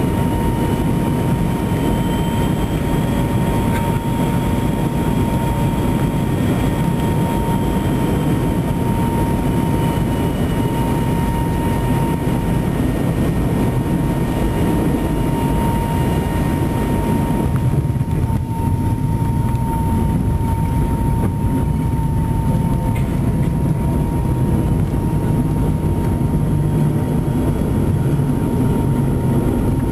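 Cabin noise of a McDonnell Douglas MD-88 landing: a steady rush of air and the rear-mounted JT8D turbofans, with a steady engine whine, through the last of the approach, touchdown and the start of the rollout with ground spoilers up. A little past halfway the high hiss drops away, and a low rumble grows near the end.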